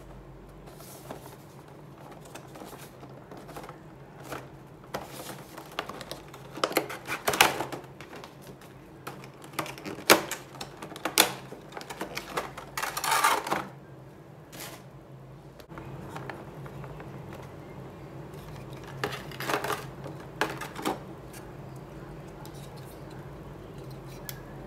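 Clear plastic blister tray crackling and clicking in irregular bursts as hands flex and pry it open to free a diecast model jet, the loudest bursts about halfway through, over a faint steady hum.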